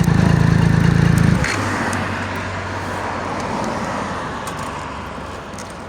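Triumph Street Triple 675 cc three-cylinder motorcycle engine idling with a steady pulsing note, then switched off about a second and a half in, leaving only a quieter background hiss that fades away.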